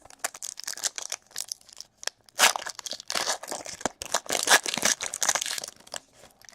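Plastic wrapper of a trading card pack crinkling and tearing as it is opened, a run of irregular crackles that is densest in the middle.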